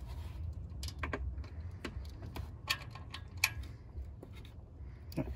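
Light, irregular metallic clicks of a hand tool, wrench or ratchet, on the bottom bolts of a newly fitted water pump, checking that they are tight. A steady low hum runs underneath.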